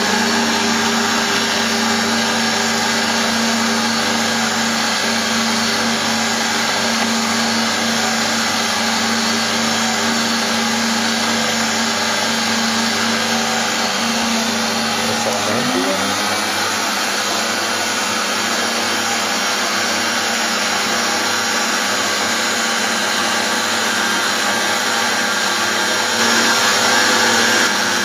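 Electric stand mixer running steadily, its flat beater churning a very wet pizza dough in a steel bowl under a plastic splash guard. The motor's pitch shifts briefly about halfway through, then settles again.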